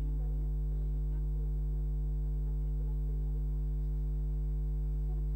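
Steady electrical mains hum, a low even buzz with its overtones, unchanging throughout.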